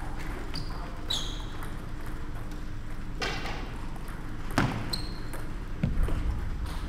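Table tennis ball clicking sharply off bats and the table, a few single pings with a short ring, while heavier thumps come in during the rally in the second half.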